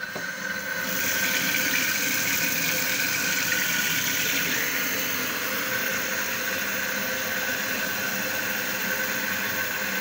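Kitchen tap turned on, water running steadily into a metal teapot packed with fruit in a stainless-steel sink: an even rush of water with a faint steady high tone in it.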